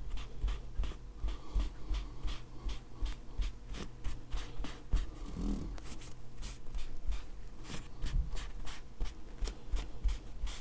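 Rag dampened with mineral spirits being rubbed over a gun's colour-filled markings in many quick wiping strokes, a few a second, to take the excess paint off, with low thumps from handling the gun.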